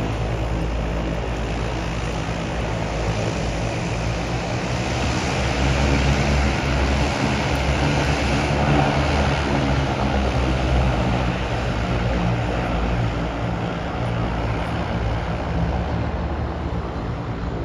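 Single-engine floatplane's propeller drone as it comes in and lands on the water: a steady low hum that grows a little louder about a third of the way in, then eases slightly.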